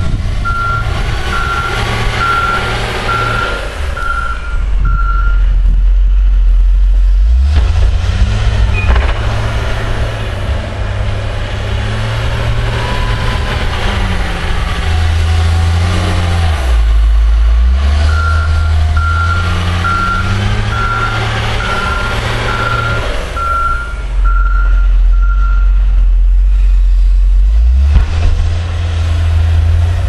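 John Deere wheel loader's diesel engine working in deep snow, revving up and down as it pushes and shifts direction. Its reverse alarm beeps about twice a second for the first five seconds and again for several seconds past the middle.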